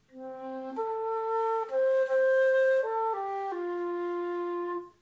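An F-key dongxiao, an end-blown Chinese bamboo flute, playing a slow phrase of single held notes: sol–mi–sol–mi–re–do. It starts on a low note, leaps up, then steps down and ends on a long held do of about a second and a half.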